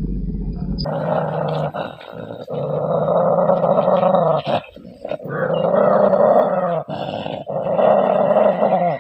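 A dog growling and snarling in long, rough stretches, about five in a row with short breaks between them.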